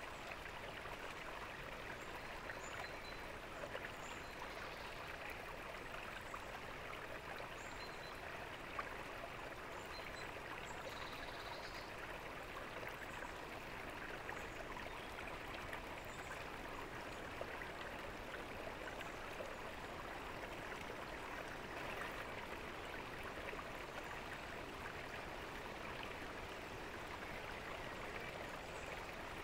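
Fountain water splashing and trickling steadily into its basin, an even, unbroken patter of falling water.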